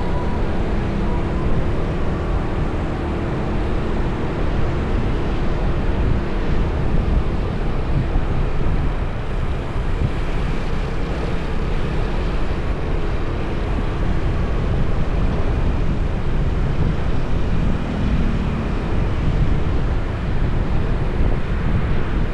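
Steady road-traffic rumble with wind buffeting the microphone, no single event standing out.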